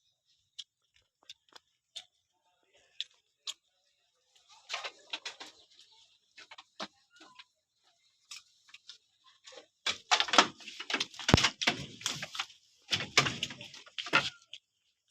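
A nanny goat that has just given birth coughing: scattered faint clicks and taps at first, a short rough burst about five seconds in, then loud, harsh coughing in three close bursts from about ten seconds in.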